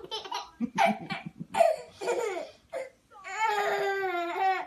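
A baby laughing in short bursts, then a long drawn-out squeal of laughter lasting about a second and a half near the end.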